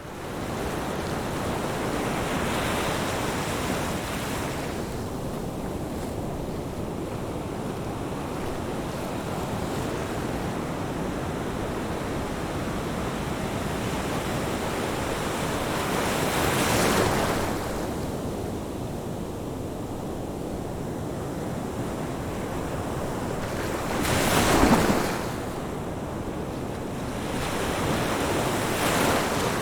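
Ocean surf washing onto a beach: a steady rush of water with waves breaking and swelling louder every several seconds, the strongest break about three-quarters of the way through.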